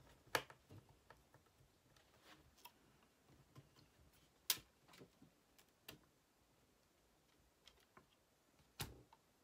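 Faint scattered clicks and taps of hands handling an HP Chromebook's display lid and panel during reassembly, with three sharper knocks about four seconds apart.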